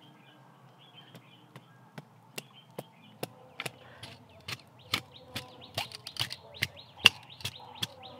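A knife striking a green bamboo pole in a steady run of sharp knocks, about two and a half a second, louder in the second half. Birds chirp faintly in the background.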